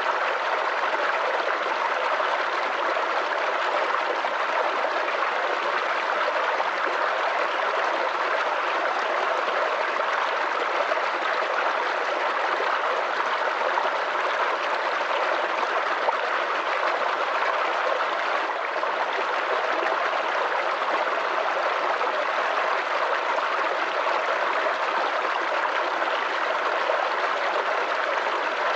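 Small creek babbling and trickling over stones, a steady, even rush of water with gurgling.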